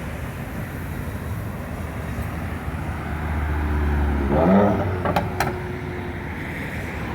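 Strong gusty wind buffeting the microphone, swelling to a low rumble about four seconds in, then two sharp knocks in quick succession.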